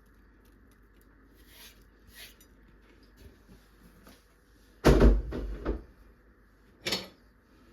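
Faint light rustles, then a heavy thump with a deep low end about five seconds in and a lighter knock about two seconds later: kitchen handling knocks.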